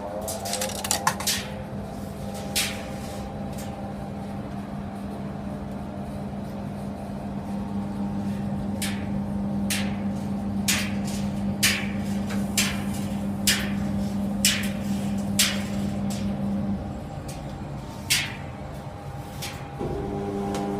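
SANYO gas coin-laundry tumble dryer running, its drum motor giving a steady hum with an odd tone, the abnormal motor noise that these units rarely develop. Sharp knocks of the tumbling load come about once a second, and near the end the hum drops out briefly and returns with a different tone.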